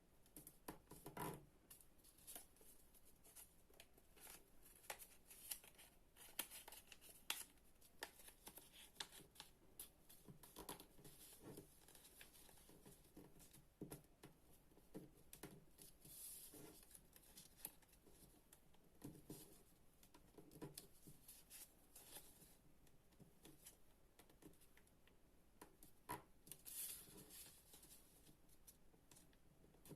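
Paper being handled, folded and creased by hand: faint, irregular rustles and crisp clicks throughout, with longer sliding rustles about halfway through and again near the end.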